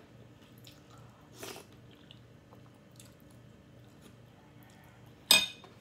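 Quiet eating sounds of a person taking a spoonful of soft macaroni soup and chewing, with a faint mouth sound about a second and a half in. Near the end, one sharp, loud click.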